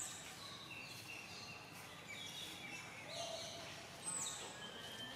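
Several short, high whistled animal calls at different pitches over a steady background hiss, with a falling sweep at the start and another about four seconds in.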